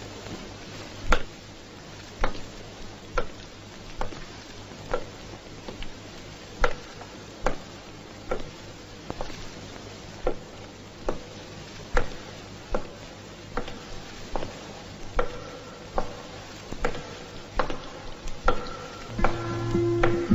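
A man's shoe footsteps on a hard corridor floor, a steady walking pace of a little more than one step a second. Near the end, soft sustained music notes come in under the steps.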